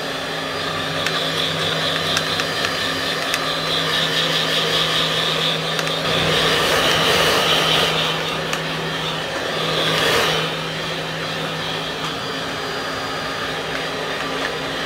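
Handheld hair dryer running steadily, blowing on freshly washed hair: a steady motor hum under rushing air, a little louder for a few seconds around the middle.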